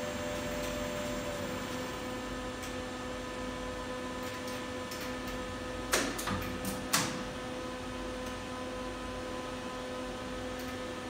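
Steady machine-room hum from geared traction elevator machinery, with several held tones over a hiss. About six and seven seconds in come two short, sharp swishing sounds that fall in pitch.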